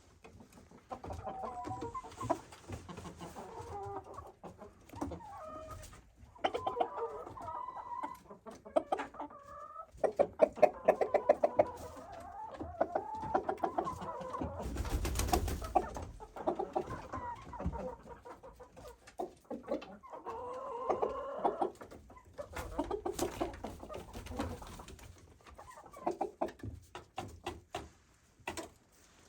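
Chickens clucking and calling on and off, in short varied calls. Sharp clicks sound about a third of the way in, and a brief loud rustling thump about halfway through.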